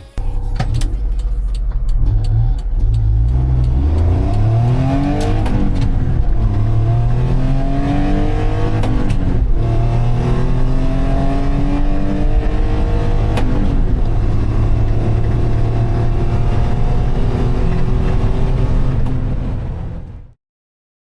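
The 550 cc engine of a 1988 Honda Acty kei truck pulling under load, its note climbing and dropping back three or four times. The sound cuts off abruptly near the end.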